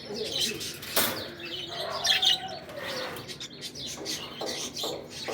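Small pet parrots chirping in a quick, busy chatter of short high calls, with a sharp snap about a second in.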